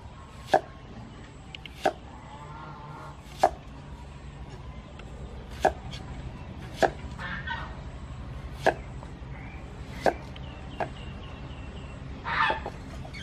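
Knife chopping vegetables on a cutting board: about eight single sharp strokes, one every second or two. A few short bird calls sound faintly between the strokes.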